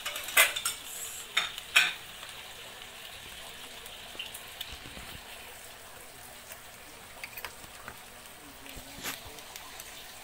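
Eggs frying in a double-sided flip pan, a steady sizzle with small scattered pops. There are four sharp knocks against the pan in the first two seconds and one more about nine seconds in.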